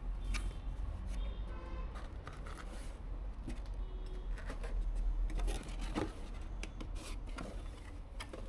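Scattered small clicks and rustles of objects being handled, over a steady low hum.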